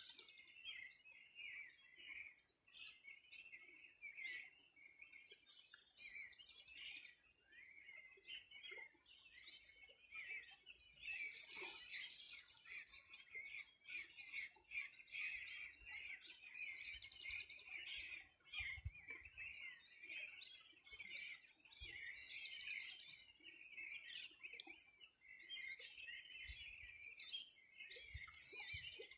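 A faint dawn-style chorus of several birds singing at once, a dense, unbroken stream of overlapping high chirps and trills.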